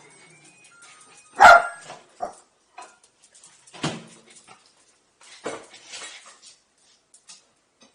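Small Maltipom (Maltese–Pomeranian mix) dog barking a few times, the loudest bark about one and a half seconds in.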